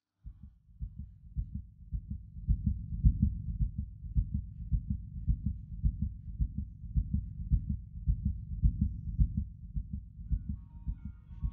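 Heartbeat sound effect: a steady, quick run of low thuds that starts a moment in, standing for a racing, pounding heart.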